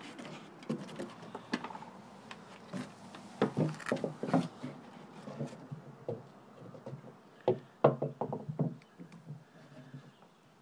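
Irregular knocks and thumps on wooden dock planks, a dog's feet and body moving on the boards. They come loudest in two clusters, about a third of the way in and again about three quarters of the way in.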